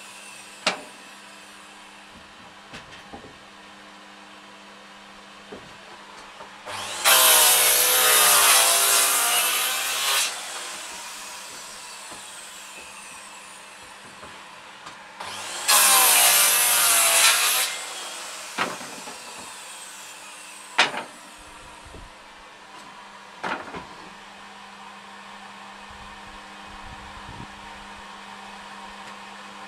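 Makita 5704R circular saw cutting through wood twice, the first cut about three seconds long and the second about two, over the steady hum of a Henry vacuum drawing sawdust from the saw. Wooden offcuts knock sharply a few times between the cuts.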